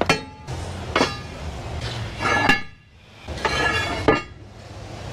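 Steel tools and track-pad hardware clanking on a bulldozer's track: a handful of sharp metallic strikes, each with a short ring.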